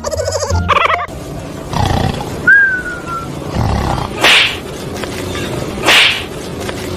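Two short, loud roars about a second and a half apart, over a low rumble, with a brief falling whistle-like tone before them.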